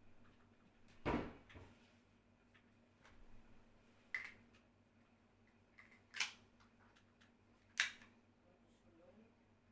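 Hard objects being handled: a knock about a second in, then three sharp clicks about two seconds apart.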